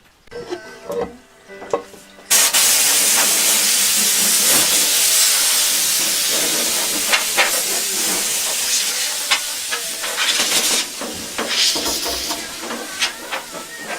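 Compressed-air blow gun hissing in one long blast that starts abruptly about two seconds in and slowly weakens toward the end, as the compressor's air runs low. Small knocks and clicks of handled metal parts sound before and through it.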